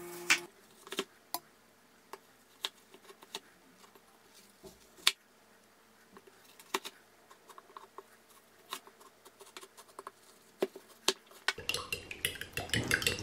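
Knife cutting through a frozen potato-and-cheese slab on a wooden board: scattered sharp taps and clicks of the blade. Near the end, a fork whisking eggs in a ceramic bowl with quick clinks.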